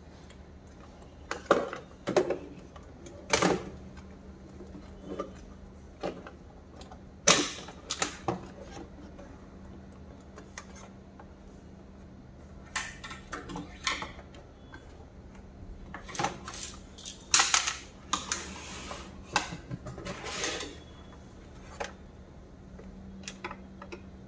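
Irregular plastic clicks, knocks and rattles as the yellow top housing of a Kärcher WD6 Premium wet-and-dry vacuum cleaner is lifted off and handled while its wiring is unplugged. The loudest knocks come about 7 seconds in and again near 17 seconds.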